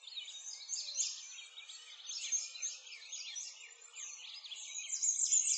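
Birds chirping: many short, high chirps overlapping in a dense chorus.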